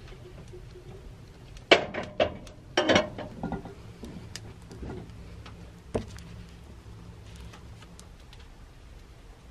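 A few sharp clunks and knocks of a metal kettle and a coffee press being handled and set down, the loudest about two seconds in, a cluster around three seconds and one more about six seconds in, over a low steady hum.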